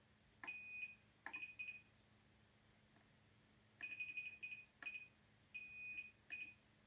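Multimeter continuity beeper sounding in about eight short, steady beeps of uneven length and spacing as the probe is touched to capacitor pads on a circuit board. A few come in the first second and a half, then a run of them after a gap. Each beep marks a probed point connected to ground.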